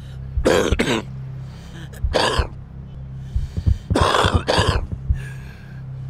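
A smoker coughing in fits: a pair of coughs, a single cough, then another pair, over a low steady drone.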